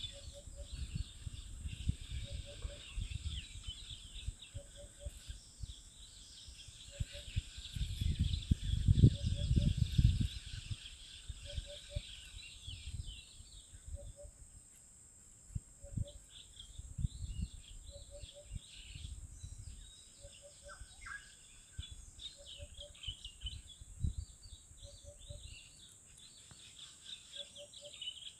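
Outdoor ambience of birds chirping, with a short double pip repeating every second or two and a steady high whine. Low rumbles on the microphone come and go, loudest about eight to ten seconds in.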